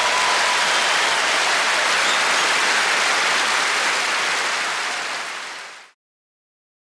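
Audience applause right after the end of a song, a dense even clatter of clapping that fades and then cuts off abruptly about six seconds in.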